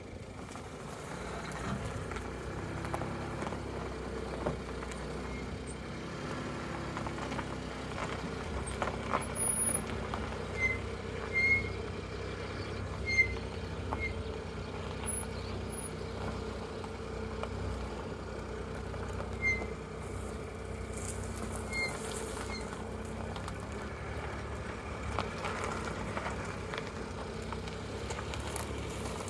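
Geely Coolray driving, with a steady low road and engine rumble, and brakes squeaking: several brief high-pitched squeals in two bunches, about ten seconds in and again about twenty seconds in.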